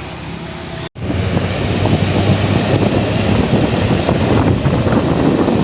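Loud rush of wind on the microphone over a large diesel bus engine's low rumble, starting abruptly about a second in.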